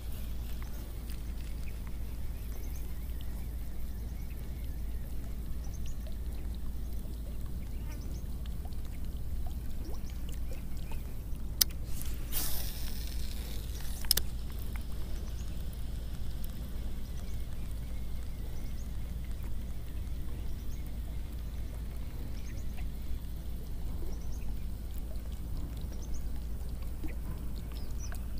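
Baitcasting reel in use while casting and retrieving a lure: faint small ticks of the reel being cranked, then a bit under halfway through a sharp click, a short whir of the spool paying out line, and another click as the reel re-engages. A steady low rumble lies underneath.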